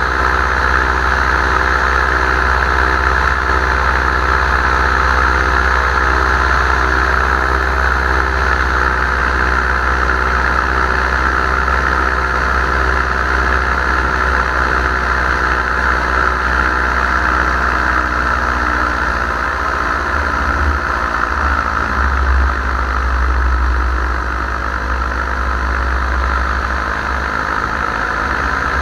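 Paramotor engine and propeller running steadily under power, loud and close, with a low wind rumble; the engine note shifts slightly in pitch about two-thirds of the way in.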